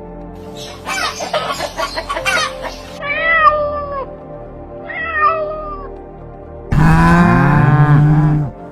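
A domestic cat meows twice, each meow a drawn-out call that rises and then falls, after a run of quick short sounds. A loud sustained musical passage comes in near the end.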